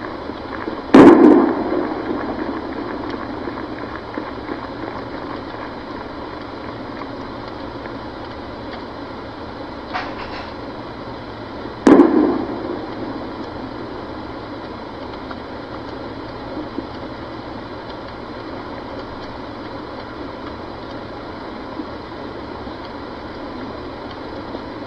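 Weapons fire in a war zone: two loud booms about eleven seconds apart, each trailing off in an echo, with a fainter crack shortly before the second. Steady background noise runs underneath.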